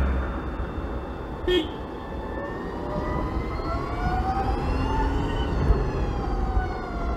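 BMW CE 04 electric scooter's motor whine, rising in pitch as it accelerates from about three seconds in and falling again as it slows, over low wind and road rumble. A short click about a second and a half in.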